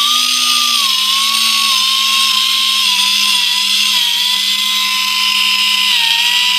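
Compressed-air sanding tool running with sandpaper on a foot's calluses: a steady high whine over loud hissing exhaust air, its pitch sagging slightly now and then.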